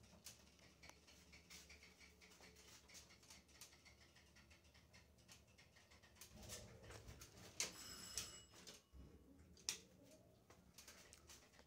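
Faint sounds inside a ShchLZ passenger lift car: light ticking and clicking while it travels. About six seconds in comes a louder low rumble with a few sharp clicks as the car slows and stops to pick up a call on the way.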